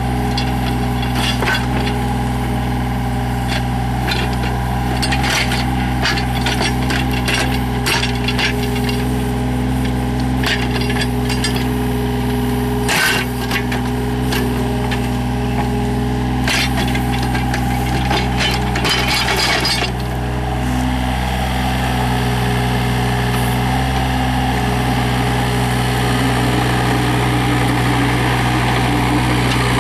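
Yanmar VIO35-3 mini excavator's three-cylinder diesel engine running steadily, with frequent sharp clanks and knocks from the working machine for about the first twenty seconds, after which only the engine is heard.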